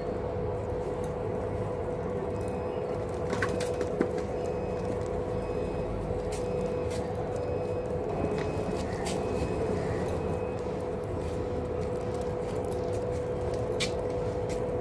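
Pigeons pecking grain off a concrete floor: scattered sharp little taps, one louder about four seconds in, over a steady mechanical hum and low rumble.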